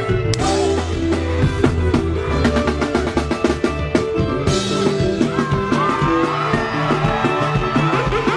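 Band music: a drum kit keeps a fast, steady beat over sustained bass notes, and higher melody lines that bend in pitch come in about halfway through.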